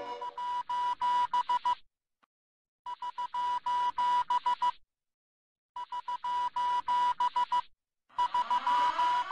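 Electronic ringtone: a steady high tone with a fast clicking rattle, sounding in bursts of about two seconds with short silences between, like a telephone ringing. Rising tones join the last burst near the end.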